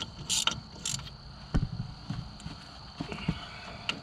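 Intermittent clicks and metallic knocks of hand tools at work on a truck's steering gearbox, with a couple of short rasping strokes in the first second and dull knocks later on.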